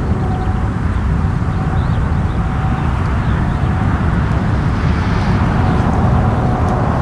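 The Antonov An-12's four Ivchenko AI-20 turboprop engines climbing out after take-off, a loud, steady rumble with a faint steady tone above it.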